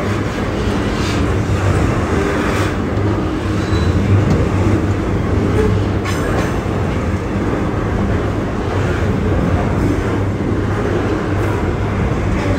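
Double-stack container freight train running: a steady low diesel locomotive rumble with a few faint clanks from the wagons.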